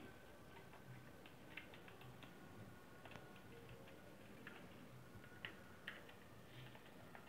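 Faint, scattered small clicks and ticks of a screwdriver working a screw out of the plastic handle of an electric mosquito racket, with near silence between them.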